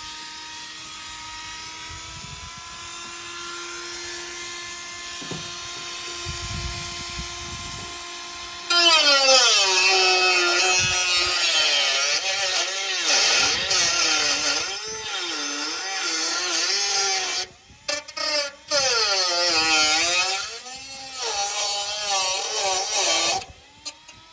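Dremel rotary tool with a cutting disc spinning freely with a steady whine. About nine seconds in it gets much louder as it cuts into the sheet steel of the car's inner wing, its pitch sagging under load and recovering again and again, with a few brief breaks.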